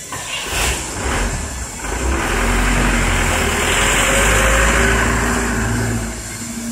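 Loud workshop machinery: a low rumble with a rushing hiss that swells about two seconds in, holds steady, and eases off near the end.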